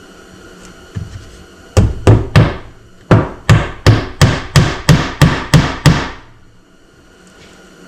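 Hammer driving a small soffit-and-fascia nail into a rough-cut wooden board: three quick blows, a short pause, then a steady run of about nine blows, roughly three a second.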